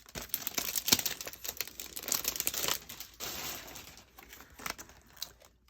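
Plastic packaging crinkling and crackling as stamps are pulled out of their plastic sleeve, with many quick clicks of handling; it thins to a few scattered ticks after about three seconds.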